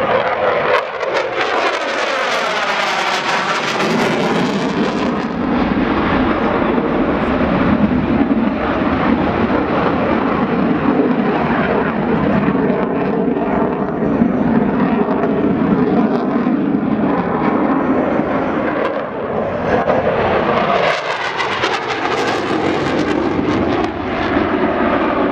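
Loud, continuous roar of a canard delta-wing fighter jet's engine on afterburner during a display flight. The roar swells twice, with a sweeping, phasing tone, as the jet passes closest.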